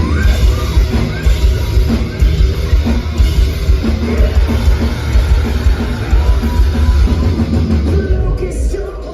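Rock band playing live, loud: heavy bass and guitars over a pounding drum kit, with a voice singing over them. The low end drops away near the end.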